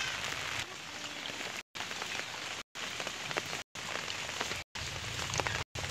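Heavy rain falling, a steady hiss with scattered drop ticks. The sound cuts out briefly about once a second.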